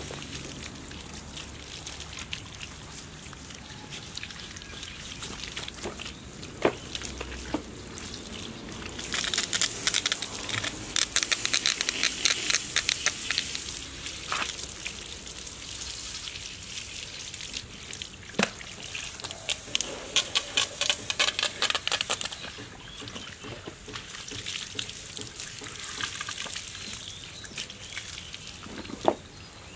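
Water from a garden hose splashing into yellow rubber boots and pouring back out as they are rinsed. There are two louder spells of spraying, about a third of the way in and again past the middle, and a few sharp knocks along the way.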